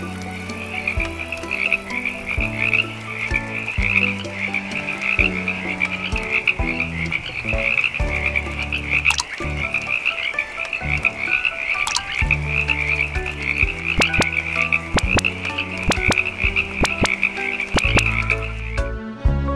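A chorus of frogs croaking in a dense, fast-pulsing trill, running steadily until it stops near the end, over background music with low held notes.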